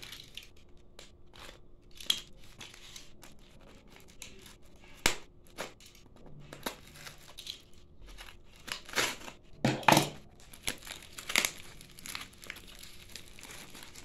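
Taped brown-wrapped parcel being cut open with a box cutter and pulled apart by hand: irregular crinkling and tearing of the wrapping and packing tape, with a sharp click about five seconds in and the loudest rustles about ten seconds in.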